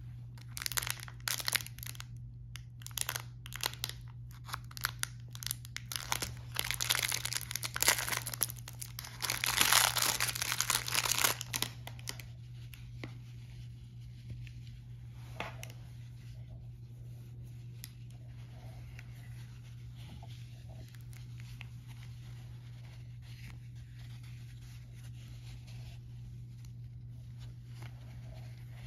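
Clear plastic wrapper of a gauze roll crinkling and being torn open in repeated crackly bursts, loudest about ten seconds in. After about twelve seconds only faint rustling of gauze is left, over a steady low hum.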